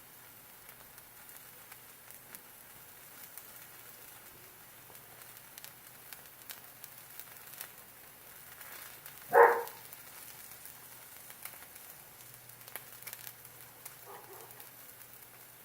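Cheese-filled arepa frying in a pan without butter or oil: a faint sizzle with scattered small crackles and pops as the cheese's fat cooks out. About halfway through comes one short, loud pitched sound, with a fainter one near the end.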